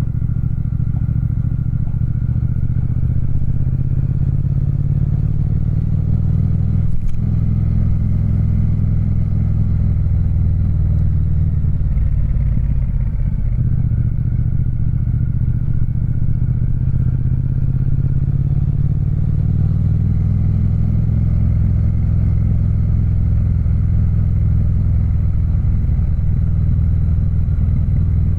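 Triumph Speed Twin 1200's parallel-twin engine burbling at low road speed, recorded from inside a saddlebag. The note holds fairly steady, with a brief knock about seven seconds in and a shift in the engine note around the middle.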